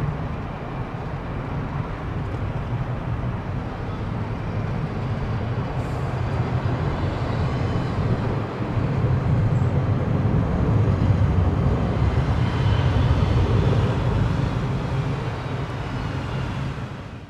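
Airbus A320 jet engines at takeoff thrust as the airliner lifts off and climbs away: a steady, deep rumbling roar that swells about nine seconds in and eases slightly near the end.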